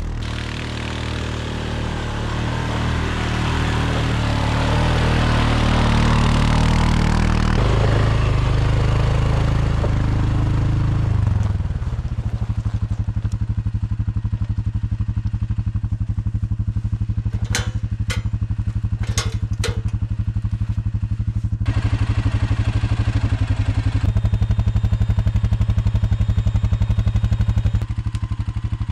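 ATV engine running under way with a loaded tipping trailer in tow, then settling to a steady idle about twelve seconds in. Four sharp clicks come a few seconds after it settles.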